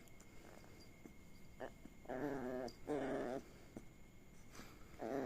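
Puppy vocalizing while being teased and tickled on its tummy: two drawn-out, wavering pitched sounds back to back about two seconds in, and another starting near the end.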